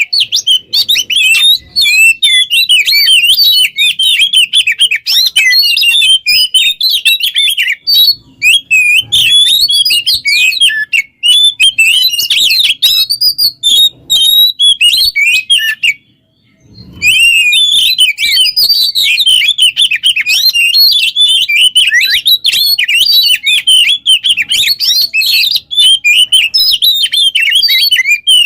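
Oriental magpie-robin (kacer) in full song: a fast, varied stream of high chirps, trills and whistles that barely pauses, with one short break a little past halfway.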